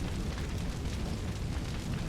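Fireball sound effect: a steady, dense low rumble of burning flames with faint fine crackling above it, with no single blast standing out.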